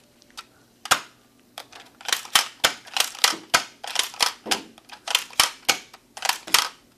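Nerf Spectre REV-5 dart blaster being primed and fired repeatedly: a single sharp plastic clack, then from about a second and a half in a quick run of clacks at about three a second.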